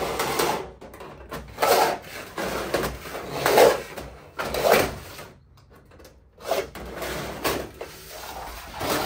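A scratch template drawn along the edge of a 0.6 mm stainless steel sheet, scribing a 5 mm line: a series of short metal-on-metal scraping strokes with brief pauses between them, the loudest about three and a half seconds in.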